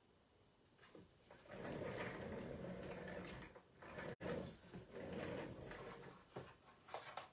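Stampin' Seal tape runner being drawn along paper in two long strokes, each about two seconds, with a few small clicks of paper handling near the end.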